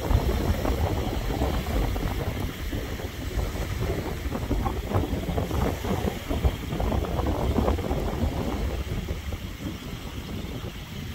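Wind rumbling and buffeting on the microphone, with small waves washing onto the beach.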